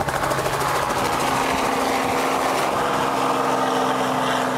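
Light helicopter's rotor and engine running steadily at lift-off power as it lifts off and climbs away overhead.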